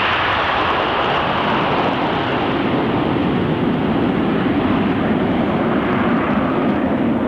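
Boeing EC-135H Stratotanker's four jet engines at full power as it climbs away after takeoff, a steady loud roar. The high hiss fades over the first couple of seconds while a deeper rumble grows stronger toward the end.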